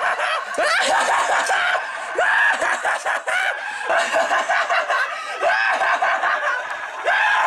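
A witch's high-pitched cackling laughter, in repeated bursts.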